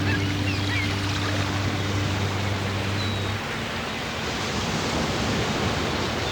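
Steady rush of ocean surf, with a few short high bird chirps in the first second and one more about three seconds in. A low held drone tone sounds under the surf and stops about halfway through.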